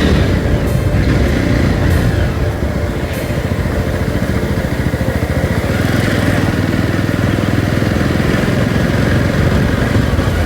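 Jawa 42 motorcycle's single-cylinder engine running steadily on the move, with wind noise rushing over the microphone.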